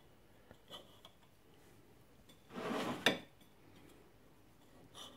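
Kitchen knife cutting rolled fondant icing on a ceramic plate, with a few light clicks of the blade on the plate. About two and a half seconds in comes a longer scrape that ends in a sharp click.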